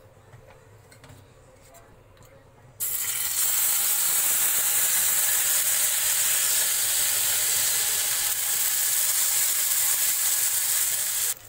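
Semolina cheela batter sizzling on a hot oiled iron tawa as it is poured and spread with a ladle. The loud, steady hiss starts suddenly about three seconds in and cuts off abruptly shortly before the end.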